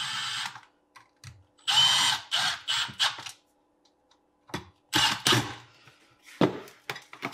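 Cordless drill/driver running in several short bursts with a high motor whine, driving in the screws of the power-cord connector on the underside of a garbage disposal.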